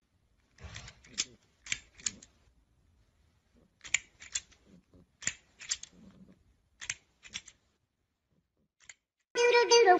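Sharp plastic clacks, mostly in pairs, from a toy crocodile on an extending scissor arm as it is pushed out and its jaws snap, about four pairs with short pauses between. Music begins near the end.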